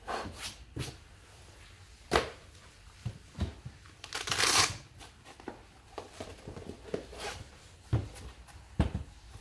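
Rustling and clicking as fire-resistant document wallets are handled on a table, with a louder rasping rustle about four seconds in as the foil-faced wallet is opened, and two dull knocks near the end as it is set down on its edge.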